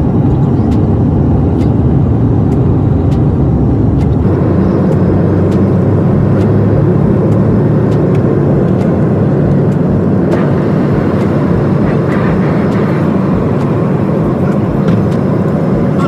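Jet airliner's engines at takeoff power heard from inside the cabin during the takeoff roll and liftoff: a loud, steady rumble that grows stronger about four seconds in, with light regular ticks from the wheels running over the runway.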